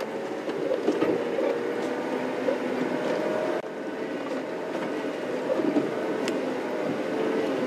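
Open safari vehicle's engine running steadily as it drives slowly off-road through bush.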